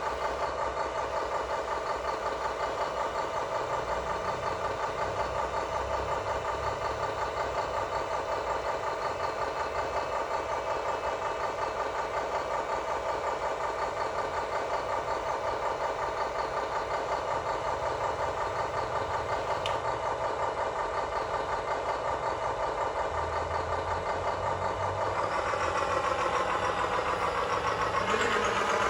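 Radio-controlled construction machine running steadily with an even, fast-pulsing engine-like hum; it gets louder and changes pitch near the end.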